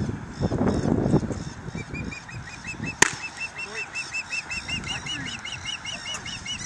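A baseball smacks into a catcher's mitt once, sharply, about three seconds in. A bird calls in a fast, even series of short chirps, about three a second, from a couple of seconds in. A low rumble of wind or handling noise fills the first second or so.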